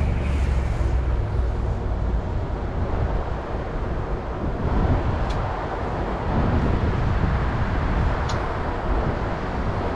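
Steady road traffic noise from a nearby city street, a low rumble, with two faint short ticks about five and eight seconds in.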